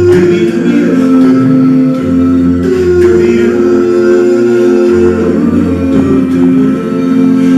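An a cappella male vocal group sings close harmony, holding sustained chords over a sung bass line. The chord changes every couple of seconds and no clear lyrics come through.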